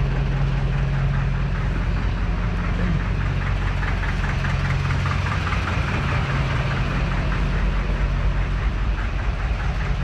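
A diesel tractor engine idling steadily while it warms up, with a low, even hum and light diesel clatter.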